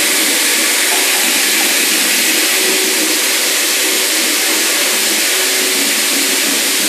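Electric rotary floor buffer running steadily, its disc turning on wet concrete: a constant, even hiss with a faint hum underneath.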